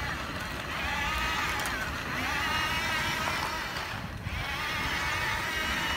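Toy remote-control dump truck's electric drive motor whining, its pitch rising and falling in repeated stretches about a second long, with a short dip about four seconds in.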